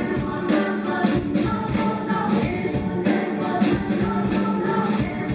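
Live rock band playing with a steady beat, in a passage between sung lines.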